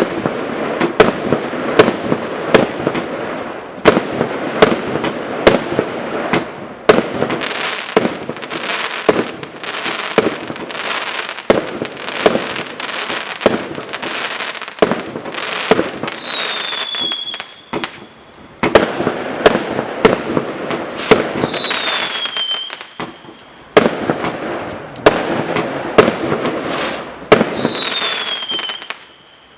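A 500-gram consumer firework cake firing: a steady string of sharp shots and bursts over crackling. In the second half a whistle effect cuts in three times, each a short whistle falling in pitch.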